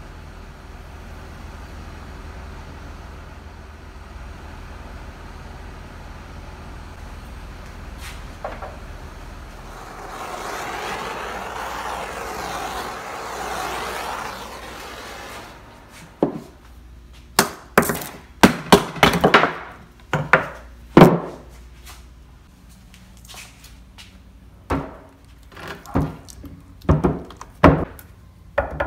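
A low steady hum for the first half, then from about sixteen seconds in a run of irregular sharp knocks and thunks of hard objects being handled on a wooden workbench, around the silicone casting mold and the clamped blocks.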